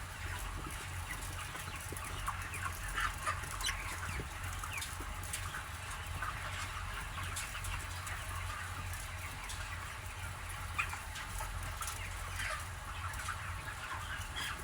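A flock of broiler chickens clucking and peeping, many birds at once, over a steady low hum.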